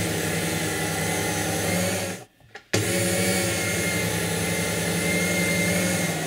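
Bosch electric food slicer motor running steadily with a hum as its circular blade slices a block of cheese. The motor stops about two seconds in and starts again half a second later.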